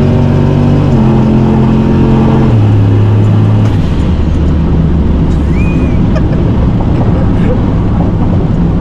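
Turbocharged Chevrolet Silverado pickup heard from inside the cab: engine and road noise. The engine note holds steady and steps down in pitch about three times in the first four seconds, then settles into a steady low drone.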